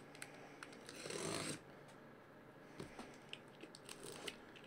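A hand rubbing across the top of a cardboard case, faint, with one short scuff about a second in and a few light ticks.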